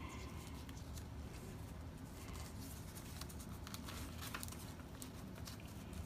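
Faint rustling of sublimation paper as hands smooth and tuck it over a neoprene seat belt cover, with a few small ticks, over a steady low hum.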